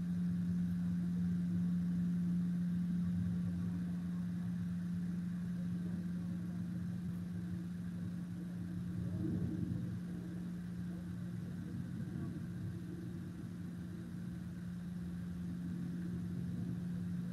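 A steady low mechanical hum with a rumble under it, swelling slightly about halfway through.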